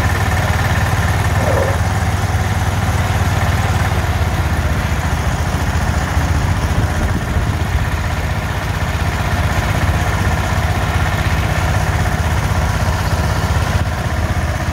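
Two garden tractor engines, a Sears and a Wheel Horse, running steadily together under load as they pull a weight sled in a double-tree pull.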